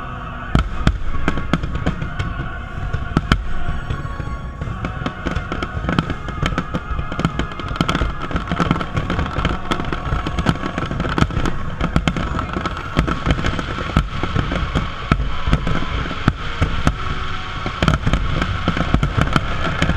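Aerial fireworks shells bursting in quick succession: a dense, continuous barrage of booms and bangs, several a second.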